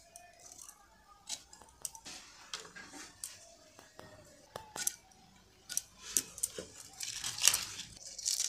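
Irregular sharp clicks and snaps of Malabar spinach flower-bud stems being cut against a boti, a curved blade fixed upright on a wooden base, with the crackle of the stems and leaves being handled. A denser stretch of crackling comes about seven seconds in.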